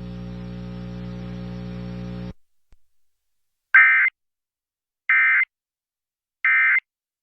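A steady low background drone cuts off about two seconds in, followed by three short, identical buzzy data bursts about a second apart: the Emergency Alert System's digital end-of-message code, which closes the monthly test.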